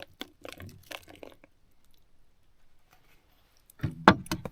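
Someone eating: chewing and a few short clicks and knocks of food and utensils. A louder cluster of knocks comes near the end.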